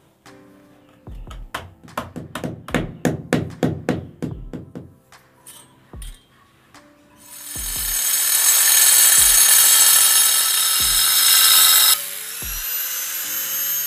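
Handheld electric angle grinder cutting a ceramic tile: a loud rasping whine for about four seconds, then a lighter whine that rises in pitch as the disc comes out of the cut. Before it, a quick run of sharp taps.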